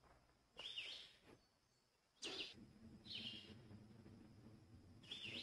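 A small songbird gives faint, short, high chirping calls, four of them at irregular spacing.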